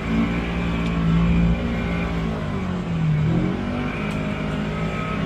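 Polaris Xpedition UTV engine pulling hard up a steep climb at steady revs. The revs dip briefly about three seconds in, then pick back up.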